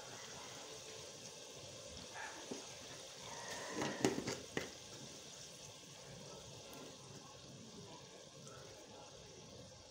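Chicken stew cooking in a large stainless-steel pot: a steady hiss of liquid bubbling, with a few louder pops about four seconds in.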